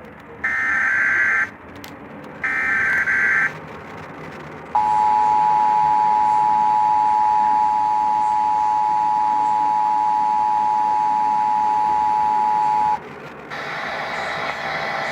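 Emergency Alert System test signal: two short bursts of the SAME digital header's warbling data tones, then, about five seconds in, the steady two-tone attention signal (853 and 960 Hz sounded together) held for about eight seconds before it cuts off.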